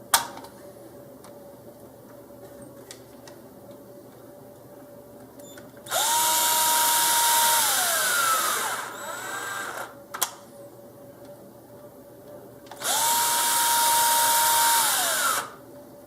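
Cordless power screwdriver driving small M3 screws in two bursts of about two and a half seconds each; each time the motor's whine rises, holds steady, then falls away as it stops. A sharp click just at the start.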